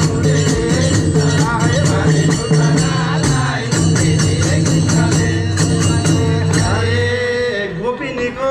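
Music with singing and fast, evenly repeating percussion over a low steady drone. The drone stops about seven seconds in and the singing carries on.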